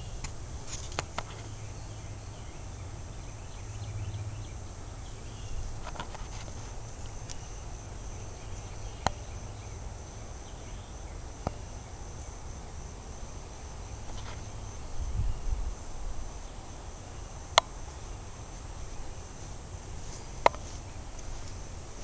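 Insects chirring in one steady, high-pitched drone, with a few sharp clicks and a brief low rumble about fifteen seconds in.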